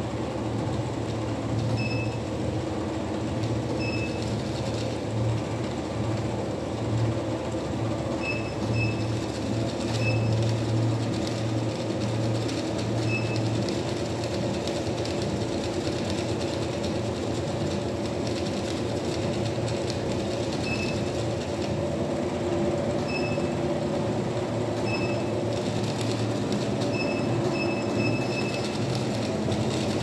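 Treadmill running steadily, its motor humming and the belt rumbling under a toy RC tractor driving against it. Brief high beeps sound now and then.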